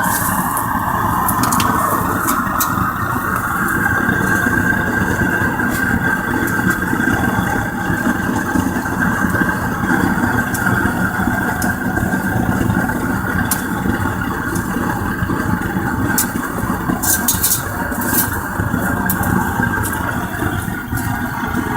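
Propane furnace burner running with a steady, even rush of flame, with a few faint ticks over it.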